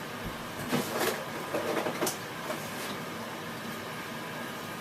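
Steady background hum in a room, with a few soft knocks and rustles about one and two seconds in.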